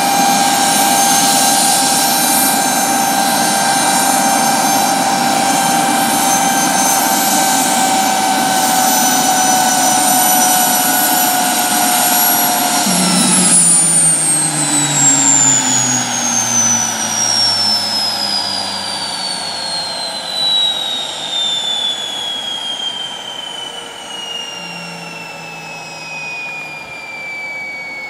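Mosquito XET helicopter's turbine engine running steadily on the ground, then shut down about 13 seconds in: its high whine falls steadily in pitch as the turbine and rotor spin down, growing gradually quieter.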